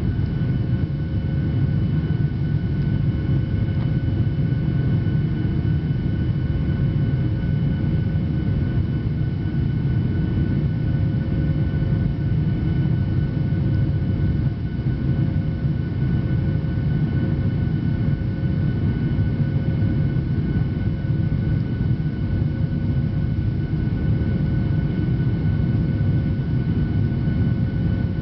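Steady drone of a jet airliner's engines and rushing air heard inside the passenger cabin during the climb after takeoff, with a faint steady high whine of several tones over the low rumble.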